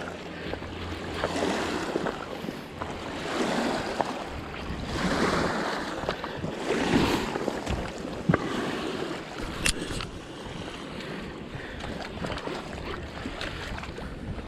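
Flowing river water with wind gusting on the microphone, swelling and easing every second or two. Two sharp clicks come about eight and ten seconds in.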